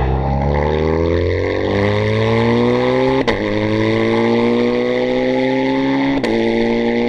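BMW R 1200 GS boxer-twin engine accelerating hard, rising in pitch, with two quick upshifts about three and six seconds in, each a short break before the pitch climbs again.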